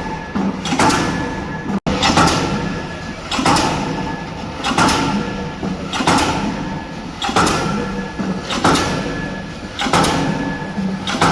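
K25 diesel pile hammer driving a concrete spun pile: a steady run of heavy blows about every 1.3 seconds, each a sharp bang followed by metallic ringing.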